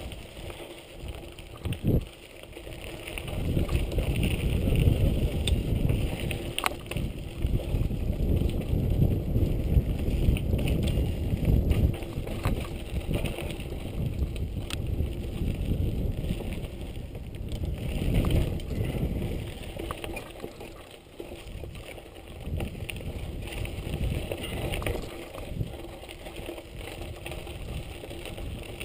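Giant Boulder 0 29er mountain bike riding along a dirt singletrack: tyres rumbling over the ground with wind noise on the microphone, and a few sharp knocks and rattles from the bike over bumps. The rumble swells during the first half and eases off later.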